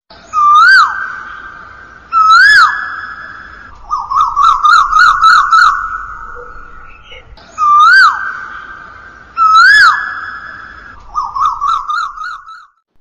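Whistled bird-call sound effect: two rising-then-falling swoops followed by a quick warbling trill, the whole pattern played twice, each call trailing off in echo.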